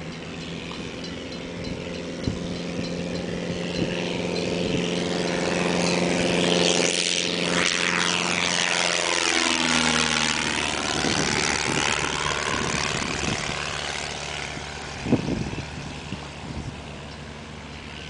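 Piper PA-28 Cherokee single-engine propeller plane climbing out after takeoff and passing overhead. The steady engine-and-propeller drone grows louder, drops in pitch as the plane goes over about nine to ten seconds in, then fades as it flies away.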